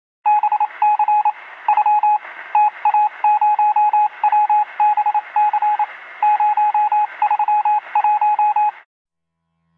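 Rapid trains of short electronic beeps in uneven groups, like a Morse-code signal, over a thin hiss that sounds narrow, as if heard over a radio or phone line. It stops near the end.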